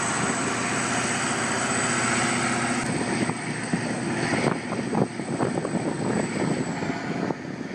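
Heavy diesel mining machinery working, a giant wheel loader and haul truck: a dense, continuous engine drone with a thin high whine over it. The sound changes abruptly about three seconds in and again about a second and a half later.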